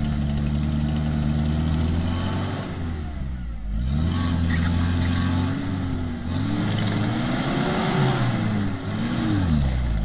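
Opel Frontera A Sport's engine pulling under load over steep rough ground, first at steady revs, then dipping briefly and revving up and down several times from about four seconds in.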